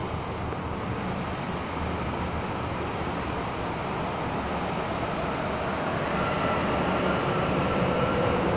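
MTR M-Train electric multiple unit running into an underground station behind platform screen doors: a steady rumble that grows louder about six seconds in, with a faint whine coming in as the cars pass.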